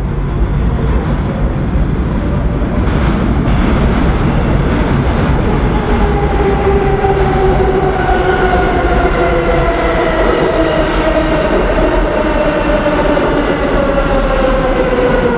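R142 subway train pulling into an underground station over a steady rumble of wheels on rail. From about a third of the way in, a whine of several tones falls slowly in pitch as the train brakes.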